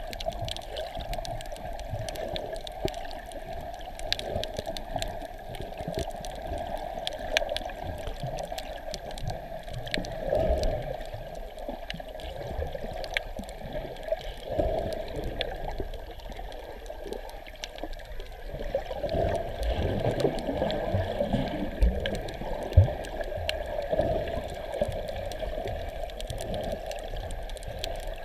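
Underwater sound picked up by a camera held beneath the surface while snorkeling: a muffled, steady water noise scattered with many small clicks. It swells into louder rushing water twice, about ten seconds in and again about twenty seconds in.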